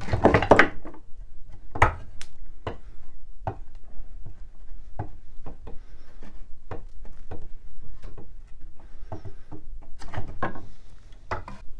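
Loose glued wooden joints of an antique chair frame being wiggled and pulled apart by hand, the old glue giving way: irregular wooden knocks, clicks and creaks, with a louder clatter in the first second and again about ten seconds in.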